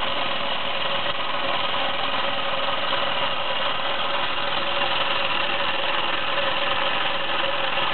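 Meccano MEC1 toy steam engine running steadily at speed, turning its Meccano gear train and twin propeller shafts: a constant, even mechanical noise with no change in pace.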